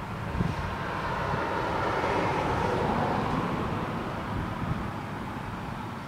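Distant engine noise, a broad rushing sound that swells to a peak about halfway through and then fades, as of something passing by.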